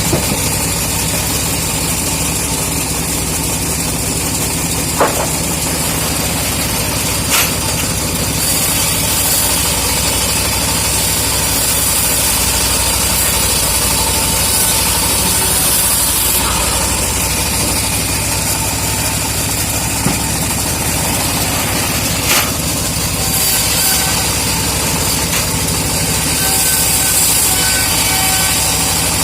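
An engine running steadily at an even speed, not under cutting load, with a few short sharp knocks now and then.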